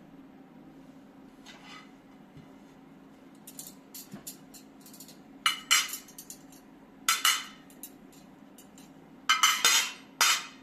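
Dishes and kitchenware clinking and clattering in a few short bursts, louder and longer near the end, over a low steady hum.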